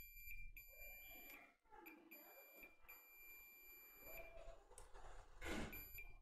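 Digital multimeter's continuity/diode-test beeper sounding a faint, steady high tone while the probes sit across shorted capacitors next to the charger's PMIC; the beep signals a dead short. It breaks off about four seconds in and comes back briefly near the end.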